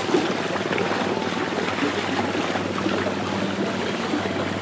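River water lapping and trickling over stones at the shore, a steady rushing sound.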